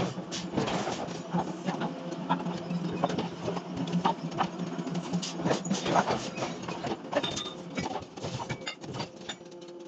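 Industrial forging machinery running with a steady hum, with irregular sharp clanks and knocks of metal throughout.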